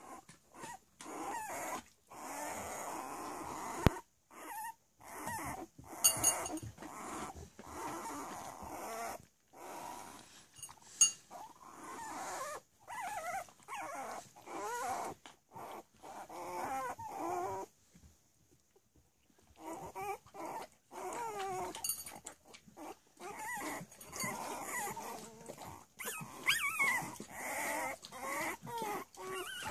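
Three-week-old Cavalier King Charles Spaniel puppies crying as they play: many short, high, wavering cries overlapping one another, with a brief lull about two-thirds of the way through. There are a few sharp knocks among them.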